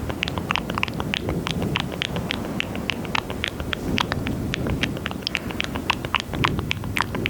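ASMR mouth sounds close on a high-gain microphone: quick, irregular wet clicks and smacks, several a second, over a low rubbing rumble.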